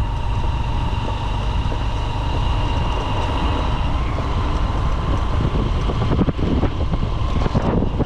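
Motorcycle riding along a road, its engine running steadily under heavy wind buffeting on the microphone.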